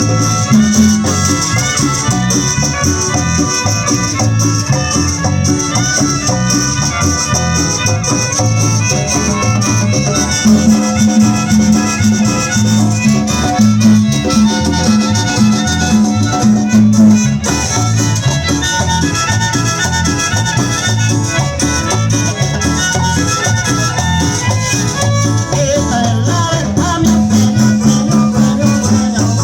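Latin dance music with a steady beat, a bass line and a constant high shaker.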